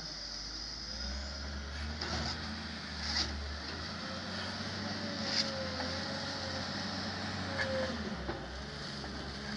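A heavy vehicle's engine running steadily with a low, even hum, joined by a faint wavering whine and a few light knocks and scrapes.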